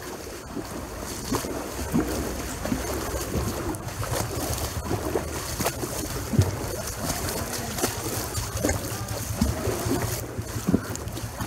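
Floodwater sloshing and splashing irregularly around the legs of someone wading through a flooded street, with a steady rumble of wind on the microphone.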